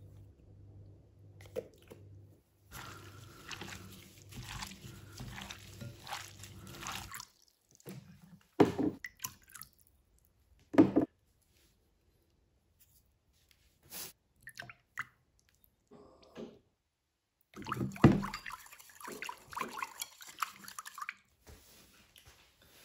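Kitchen food-prep sounds in several short takes: liquid sauces poured and dripping into a bowl of raw shredded pork, wet mixing, and a few sharp knocks of a spoon against a bowl, with quiet gaps between.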